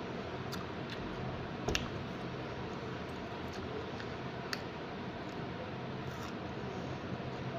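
Person eating mango, heard as a few short mouth clicks and smacks over a steady hiss. The loudest comes just under two seconds in, and another about four and a half seconds in.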